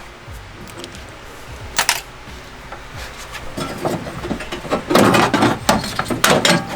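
Metal clinks and rattles of a 10 mm socket tool being worked on the bolts inside a car door. They start sparse, with a single click, and get busier and louder over the last few seconds.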